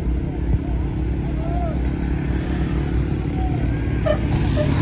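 Bus engines running with a steady low rumble.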